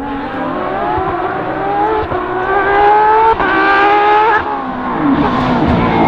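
Porsche 997 GT3 rally car's flat-six engine accelerating hard, its pitch climbing steadily, with a quick upshift about three seconds in. About a second later the engine note falls sharply as the car lifts off, then runs at a lower, uneven pitch.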